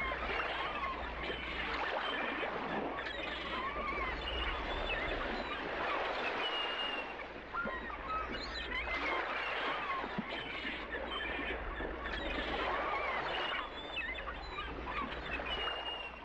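A dense chorus of many birds calling over one another, with short whistled and chirping notes that rise and fall, over a steady low rumble.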